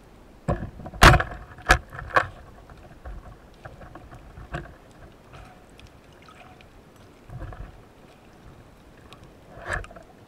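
Band-powered speargun fired underwater: one sharp loud crack about a second in, followed by a few smaller knocks and clicks from the gun, shaft and line, and another knock near the end.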